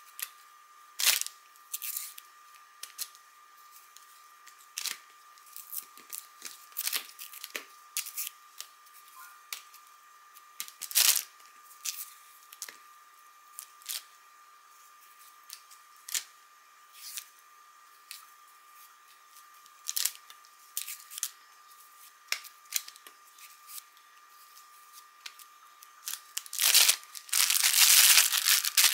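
Ripe bananas being peeled by hand: scattered short tearing and snapping sounds of the skins coming off. Near the end a plastic zip-top bag crinkles and rustles continuously as it is handled.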